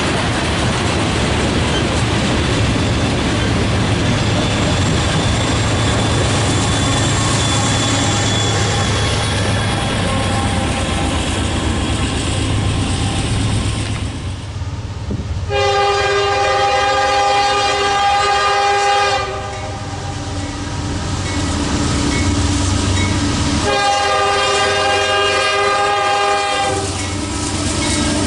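Train rolling past with steady wheel and rail noise and a low rumble. Then the locomotive's air horn sounds two long blasts, about 15 and 24 seconds in, each a chord of several steady tones.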